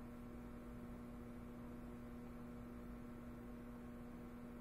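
Faint steady electrical hum over quiet room tone, one even tone that does not change.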